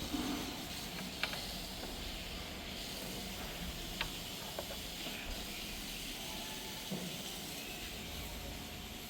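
Steady hiss of background noise, with a few light clicks and taps scattered through it.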